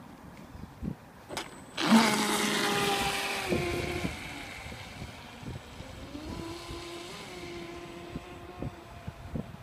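Electric RC racing catamaran with a Lehner brushless motor on an 8S battery, throttling up with a sudden high-pitched motor whine about two seconds in, after a couple of short knocks. The whine drops slightly in pitch and grows fainter as the boat runs off at a steady pitch.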